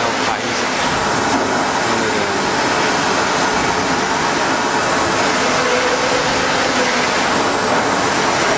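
TS2513 flatbed UV printer (2.5 m by 1.3 m bed) running as it prints, its print carriage with UV curing lamps traversing over the bed: a steady mechanical running noise with no pauses.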